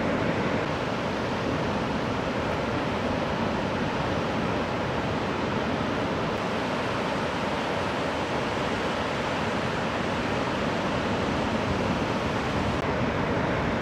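Steady roar of breaking ocean surf, an even rush with no distinct crashes.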